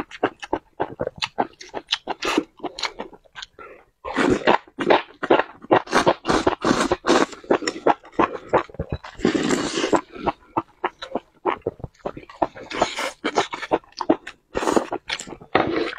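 Close-miked eating of spicy enoki mushrooms: wet chewing with quick lip smacks in rapid succession, and a longer slurp from a plate of sauce about nine seconds in.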